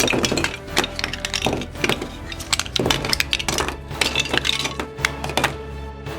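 Plastic Lego Duplo bricks clicking and clattering as a set is taken apart and the pieces handled, many quick knocks, thinning out near the end.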